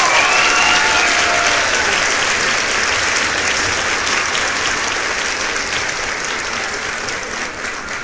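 A crowd applauding, dense clapping with a few cheering voices near the start, slowly fading.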